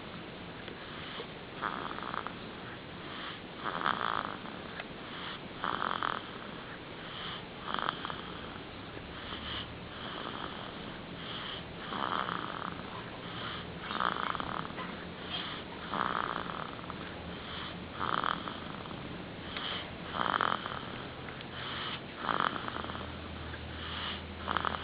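A baby snoring in deep sleep, a short snore about every two seconds.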